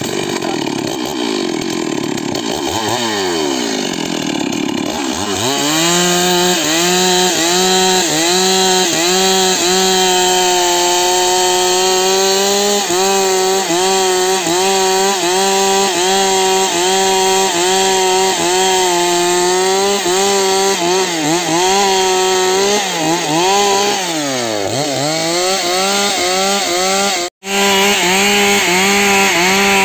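Stihl two-stroke chainsaw running. Over the first few seconds its revs drop and climb, then it is held near full throttle with the pitch wavering as the chain works through a wood block. About three-quarters of the way through, the revs dip briefly and pick up again.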